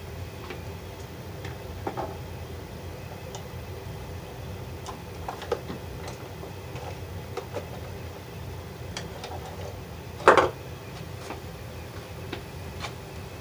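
Scattered small clicks and scrapes of pliers handling and twisting bare copper ground wires together, with one louder brief scrape about ten seconds in, over a steady low hum.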